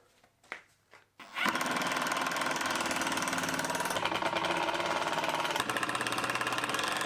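12-volt Bosch cordless impact driver hammering steadily as it drives wood screws, starting about a second and a half in.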